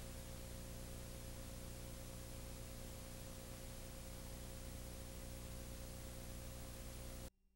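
Faint steady hiss with a low mains-type hum and a thin steady tone: background noise of the old video recording, with no other sound in it. It cuts off to dead silence about seven seconds in.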